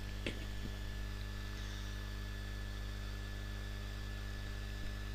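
Steady low electrical hum and buzz, with a few faint light taps of a silicone spatula stirring flour and melted butter in a ceramic bowl, about a third of a second in, again shortly after, and once near the end.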